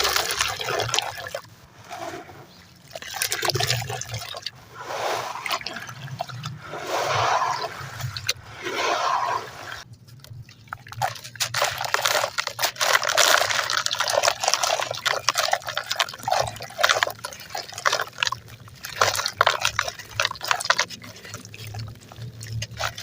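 Wet, gritty crumbling: chunks of concrete and ash being broken up and worked in water into a paste, with many small crackles that come thickest in the second half.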